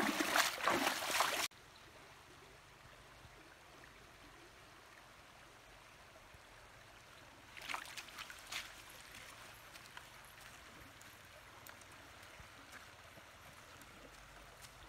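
Water splashing loudly as feet wade through a shallow river, cutting off abruptly about a second and a half in; then the faint, steady sound of river water flowing over a stone weir, with a few brief clicks about halfway through.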